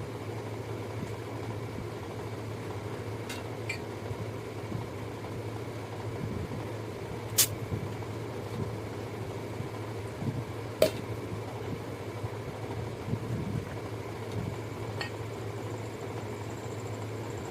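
Steady low hum with a few short, sharp taps; the two loudest come about seven and eleven seconds in.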